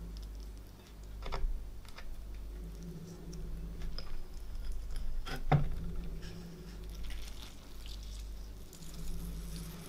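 Fingers shelling a boiled prawn, with small cracks and wet squishing of shell and flesh, and a sharper crack about halfway through. Near the end, a lemon half is squeezed over a prawn.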